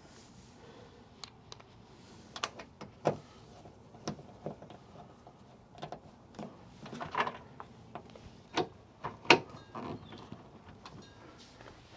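Irregular clicks and knocks of car door parts and tools being handled as the door is reassembled, the sharpest knocks about three seconds in and again near nine seconds.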